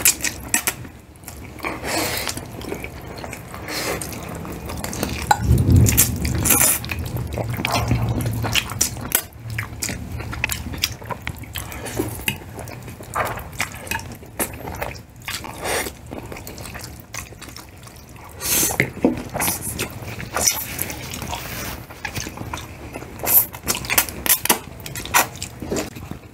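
Close-miked eating of spaghetti: wet chewing, slurping and lip smacks, in many short irregular bursts.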